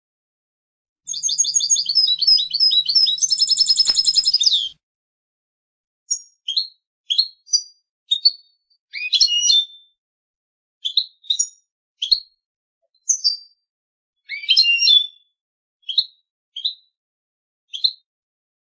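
European goldfinch singing: a rapid, liquid twittering phrase lasting about four seconds, then a run of short, separate high notes and brief twittered fragments spaced about a second apart.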